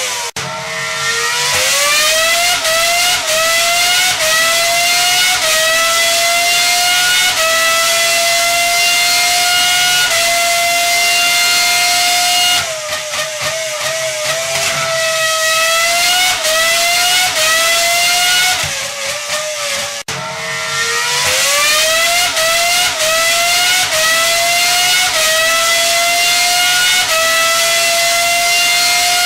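Car engine accelerating through the gears. Its pitch climbs, dips slightly at each upshift, then holds a steady high drone. About midway it drops and wavers as if lifting off, climbs briefly and dips again, then pulls up through the gears once more.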